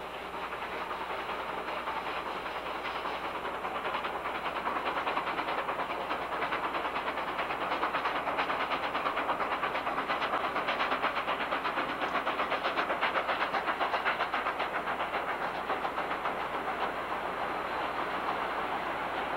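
Chesapeake & Ohio 614, a 4-8-4 steam locomotive, and its train running with a steady, rapid rhythmic beat and hiss. The sound grows louder toward the middle, then eases a little.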